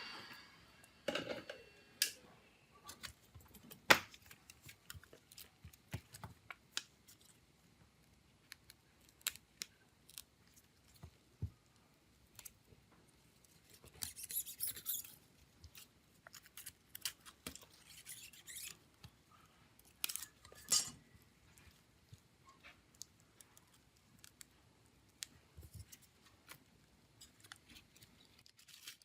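Small hand tools and plastic and metal phone parts clicking, tapping and scraping during hand work on a smartphone, with two short scratchy rustling stretches about halfway through and again a few seconds later.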